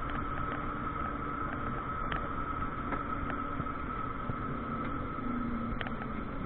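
Cabin sound of a Carver electric three-wheeler driving at about 50 km/h: steady road and wind noise with a constant high whine, and a lower drivetrain hum that drops slightly as the car slows to about 40 km/h. Scattered faint ticks are also heard.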